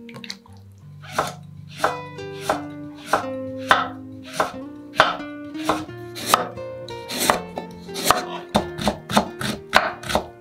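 Kitchen knife cutting through a carrot onto a wooden cutting board, sharp even knocks starting about a second in at about one and a half a second, quickening to about three a second in the second half as the slices are cut into thin strips.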